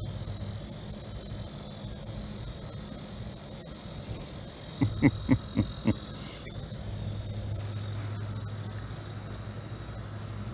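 Outdoor ambience of insects with a low steady hum that drops out in the first second and comes back about seven seconds in. Around five seconds in, a quick run of five short voiced sounds stands out as the loudest thing.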